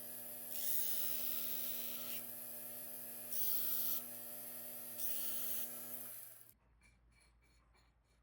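Small electric rotary tool running steadily with a hum, cutting through a ring at its old sizing seam; the hiss swells three times as the cut bites, then the motor stops suddenly about two-thirds of the way in.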